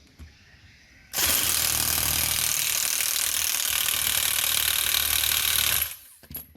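A power tool running loudly and steadily for about five seconds, starting suddenly about a second in and cutting off near the end, followed by a couple of short knocks.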